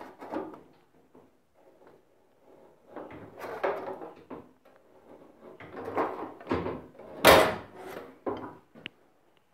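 Hand shears cutting a strip of sheet metal: a series of uneven snips and clicks, the loudest about seven seconds in.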